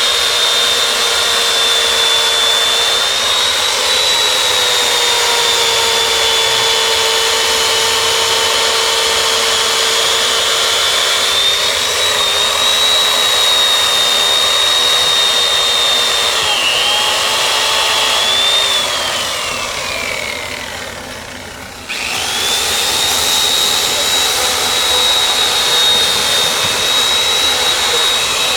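High-speed electric power tool, of the kind used for ice carving, running with a steady high whine. About two-thirds of the way through it is switched off and winds down with falling pitch, then starts up again a few seconds later.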